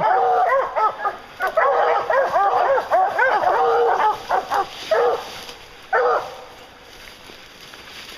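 A pack of hunting hounds barking at a treed black bear: many quick overlapping barks that thin out and stop about six seconds in.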